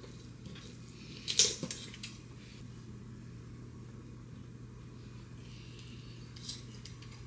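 Kitchen scissors snipping through a raw chicken's wing: one loud, sharp snip about a second and a half in, and a fainter snip near the end. A steady low hum lies underneath.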